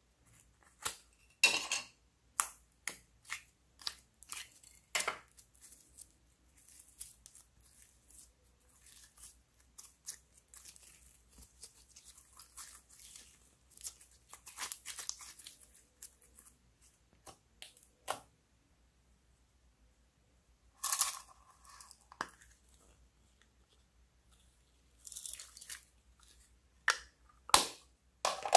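Sticky crackling and small pops of green glitter slime as it is squeezed from its container and stretched into the bowl, with sharp clicks and snaps from handling the plastic containers.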